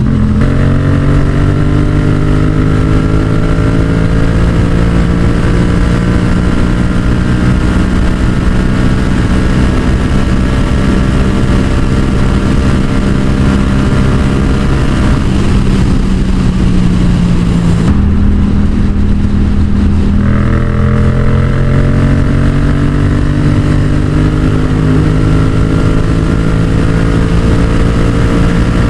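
Yamaha XSR700's parallel-twin engine running hard at speed, its note climbing slowly and steadily. The note softens and drops for a few seconds about fifteen seconds in, then picks back up and climbs again. Heavy wind rush on the microphone throughout.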